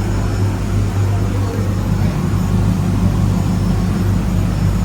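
Fishing charter boat's engine running steadily, a loud low hum that holds an even pitch throughout.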